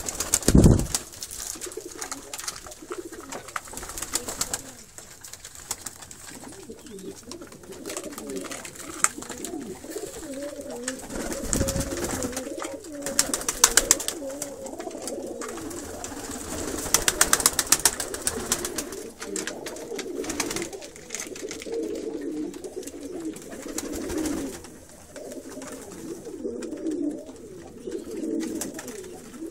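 Flock of domestic pigeons cooing continuously, many voices overlapping, with scattered bursts of sharp clattering and a couple of dull thumps.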